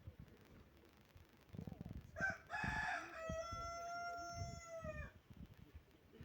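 A rooster crowing once: a call of about three seconds starting around two seconds in, ending in a long held note that drops off at the end.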